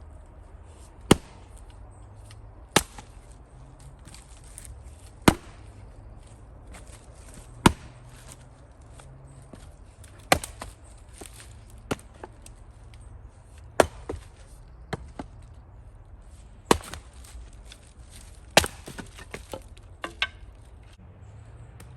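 Axe blows splitting firewood by hand: about nine sharp chops a couple of seconds apart, with smaller knocks of wood in between.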